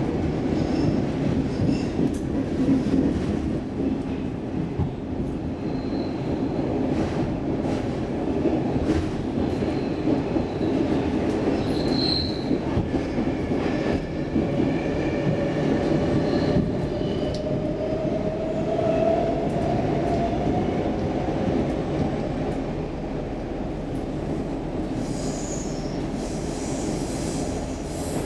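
Stockholm Metro C14 train running, heard from inside the car: a steady rumble of wheels and running gear with scattered clicks of the wheels over the rail. Brief high wheel squeals come through, and a longer squeal rises slowly in pitch in the middle.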